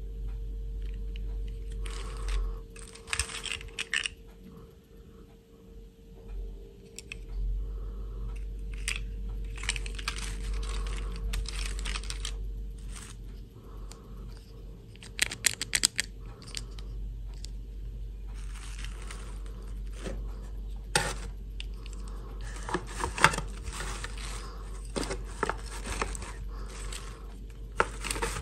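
Small plastic dolls being handled and set down in a box: scattered rustles, taps and clicks of hard plastic, with bunches of sharper clicks about halfway through and again near the end. A faint steady hum runs underneath.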